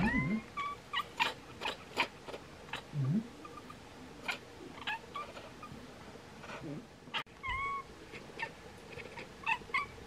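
Bengal cats chattering at birds: irregular sharp clicks mixed with short chirps, and a short low call about three seconds in.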